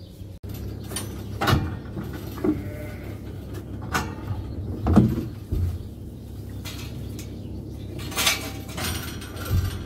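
Young dairy calves in their hutch pens, giving a few short bleat-like calls, with several sharp knocks and rattles of the galvanised metal pen gates among them.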